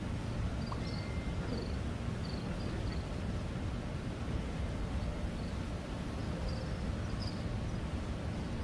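Steady low rumble of open-air background noise during a silent moment of prayer, with faint, short, high bird chirps coming and going, most in the first few seconds and again near the end.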